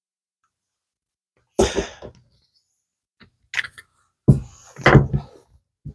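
Handling noise on a workbench: a few sharp knocks and clatters as small objects are picked up and set down, starting about a second and a half in.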